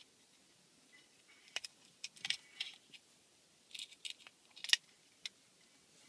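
Scattered light clicks and taps of a small hard object being handled, about a dozen over several seconds, with the loudest click a little past the middle.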